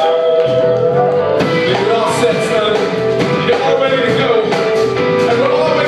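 Live band playing: a flute holds a melody over bass, guitar and drums, with the bass coming in about half a second in and cymbals keeping a steady beat after that.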